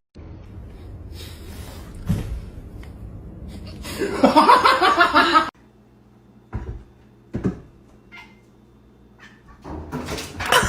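Domestic cat meowing: a loud, drawn-out call of about a second and a half, four seconds in, and another short cat call near the end, with a few soft clicks in the quiet stretch between.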